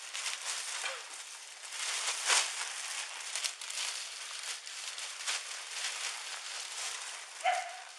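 A large black plastic garbage bag crinkling and rustling as it is gripped and hauled, with a loud crackle about two seconds in. Near the end comes a short squeak.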